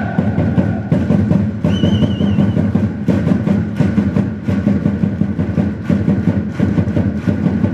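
Large crowd of marching football supporters: a dense, loud clatter of many claps and footfalls over the steady hum of the crowd's voices, with a short warbling whistle about two seconds in.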